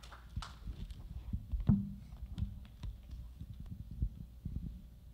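Handling noise on a handheld microphone: irregular low thumps and bumps, the loudest about a second and a half in, with a few faint clicks.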